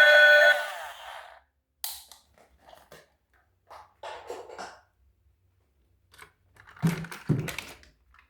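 Background music fading out in the first second, then scattered light clicks and rustles of toys and packaging being handled, with two louder knocks a little before the end.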